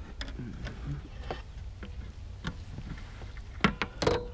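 Handling noises of a crappie in a landing net on a boat floor: scattered knocks and rattles as the fish is reached for, with two louder knocks near the end as it is grabbed. A low steady rumble runs underneath.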